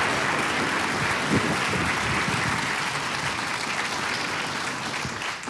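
Studio audience applauding, the clapping slowly dying down toward the end.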